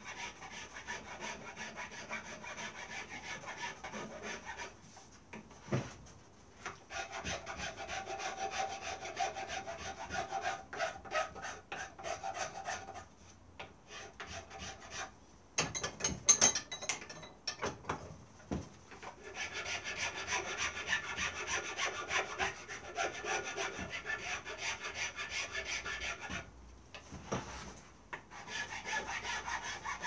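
Hand file rubbing on a carved wooden woodcock head, in spells of quick back-and-forth strokes with short pauses between, shaping the wood and taking its square edges off. A few sharper knocks come about halfway through.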